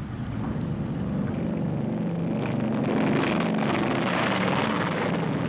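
Aircraft piston engines running: a steady drone with a rushing noise that grows louder over the first few seconds.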